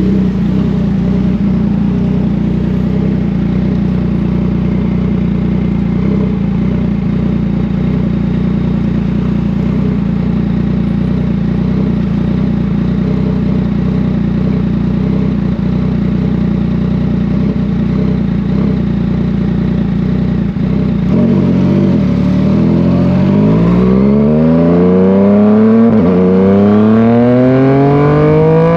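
Yamaha MT-09's three-cylinder engine and exhaust running at a steady note for about twenty seconds. It then accelerates hard from a little past twenty seconds, the pitch climbing, dipping briefly at a gear change and climbing again near the end.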